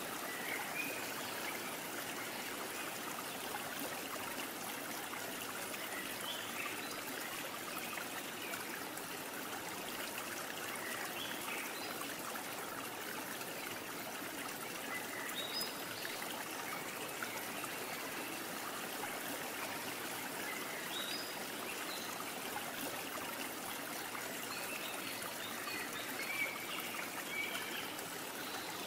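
Steady rushing noise like a running stream, even and unbroken, with faint short high-pitched chirps scattered through it.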